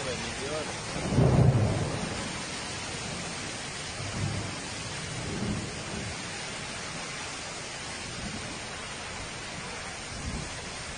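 Hurricane rain and wind: a steady hiss of heavy rain and storm gusts, with low rumbling surges, the loudest about a second in and weaker ones around four and five seconds in.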